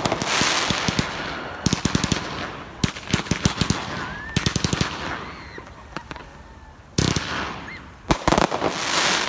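Fireworks going off: quick strings of rapid cracking bangs, then a few single louder bangs, each trailed by fading crackle.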